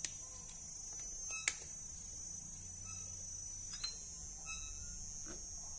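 Steady high-pitched chirring of crickets in the background, with a sharp click right at the start, a louder one about a second and a half in, and a few faint ticks later.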